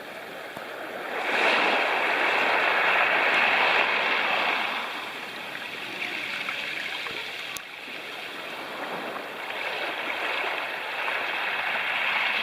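Sea waves surging up a pebble beach and washing back, in two swells: a loud one a second or so in that lasts a few seconds, and another building near the end.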